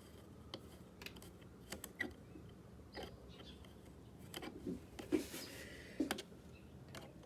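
Screwdriver backing screws out of a Bosch hammer drill's housing: scattered faint clicks and small knocks of the tool and the screws, with a short scrape about five seconds in.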